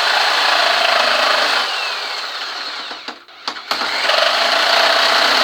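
Reciprocating saw running and cutting into the bush stock, in two long runs with a short break and a couple of sharp clicks about three seconds in.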